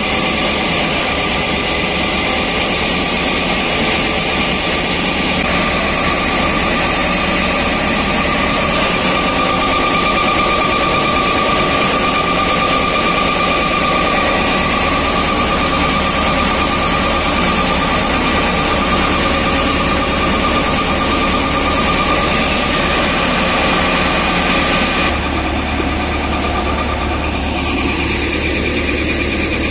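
ShaktiFarm paddy threshing machine running under load off a Sonalika DI 42 RX tractor: a loud, steady mechanical drone with a steady high whine from the threshing drum and fans as paddy is fed in. The sound shifts slightly about 25 seconds in.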